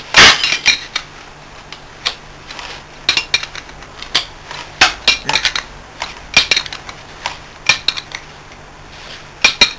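Irregular sharp metal-on-metal clinks and clicks of a wrench and bar working the rotor retaining bolt, fitted with a spring washer, on the shaft of a Bitzer semi-hermetic compressor motor. The loudest clank comes right at the start.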